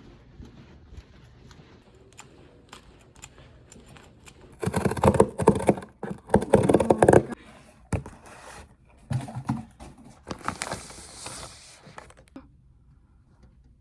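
Camera packaging being handled and opened: light clicks and rustles, then two loud bursts of rustling and scraping a few seconds in, with more scraping and hiss later.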